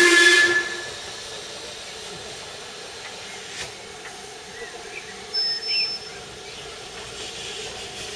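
Steam locomotive whistle blast that cuts off under a second in, followed by a steady hiss of steam as the engine moves slowly along.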